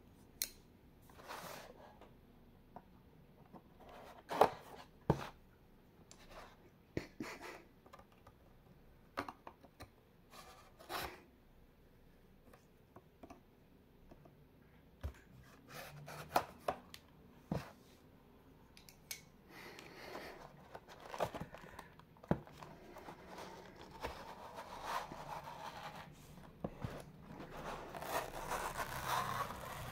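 Hands handling a folding knife and its cardboard presentation box: scattered sharp clicks and taps, then over the last few seconds a longer rubbing scrape of the cardboard sleeve sliding off the inner tray.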